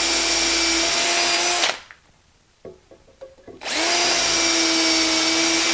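Cordless drill spinning a long bit through the steel guide barrels of a hinge-drilling jig into a hardwood hinge blank, boring the holes for the hinge pin. It runs twice at a steady speed: the first run stops a little under two seconds in, and after a pause with a few small clicks the second starts near four seconds.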